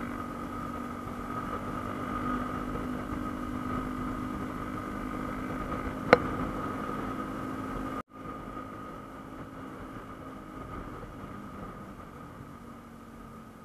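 Yamaha M-Slaz motorcycle's single-cylinder engine running steadily. A sharp click about six seconds in, and a moment later the sound cuts out for an instant; the engine hum then goes on quieter, slowly fading.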